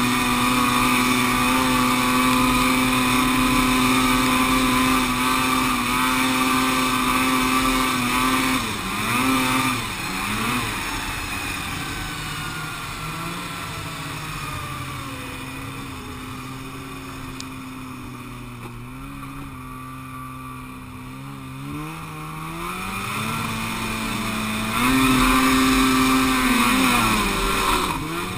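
Polaris snowmobile's two-stroke engine running at high, steady revs while riding, easing off about a third of the way in to slower, wavering revs for a good while, then speeding back up to high revs near the end before easing off again.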